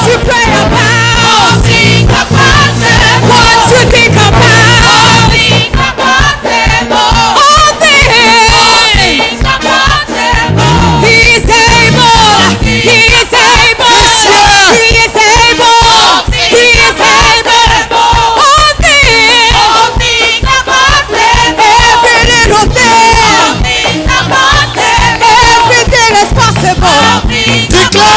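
Live gospel music: a church choir singing with the standing congregation over loud instrumental accompaniment. Steady low notes give way about six seconds in to a driving, even beat.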